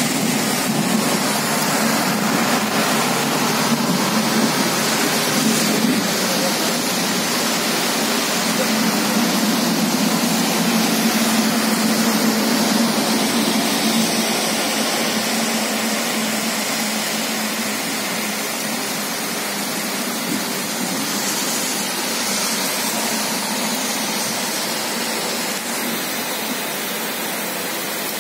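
Heavy rain pouring down in a steady, dense hiss that eases slightly toward the end.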